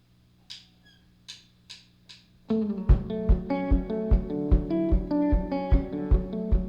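A few sharp clicks count the tempo in. About two and a half seconds in, the band starts together: acoustic guitar chords over a steady low thump on every beat, opening the instrumental intro of the song.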